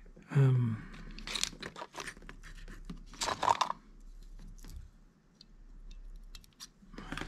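Brief rustling and scraping handling noises at a fly-tying vise, then a few faint small clicks near the end as scissors snip the tying thread at the hook. A short murmured voice sound just after the start.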